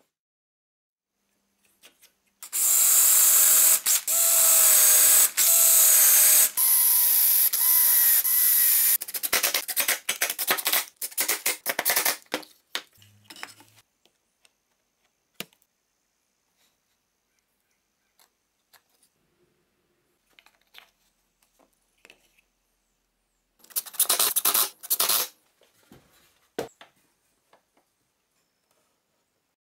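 A power-tool motor runs in several bursts of a second or two, its pitch shifting a little as it works. A quick run of clicks and knocks follows, and a second short burst of tool noise comes later.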